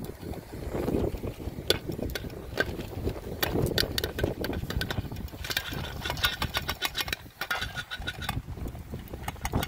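Popcorn popping inside a lidded metal pot on a gas canister camping stove: scattered sharp pops at first, coming thick and fast about halfway through. A steady low rumble of wind on the microphone lies underneath.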